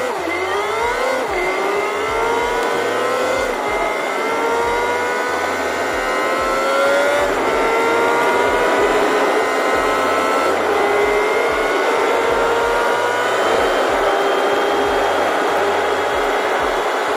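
Semi truck's engine heard from inside the cab while accelerating through the gears: its pitch climbs slowly and drops back at each upshift, every three to four seconds, then holds steadier near the end.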